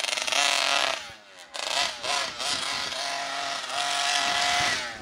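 RCMAX 80cc two-stroke gas engine in an RC monster truck revving hard as it drives: a burst of throttle, a drop, a couple of quick blips, then a long steady high-rpm run that falls off just before the end. The engine is running rich, still in break-in on its first tank.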